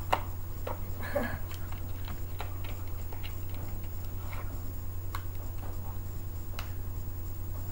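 Steady low hum with about a dozen small clicks and taps, unevenly spaced, the sharpest right at the start.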